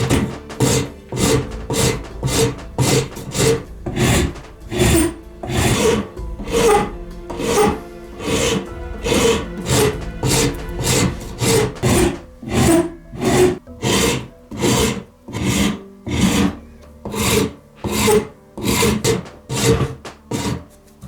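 Hand sanding by hand-held abrasive, rubbed back and forth in steady, even strokes of about two a second.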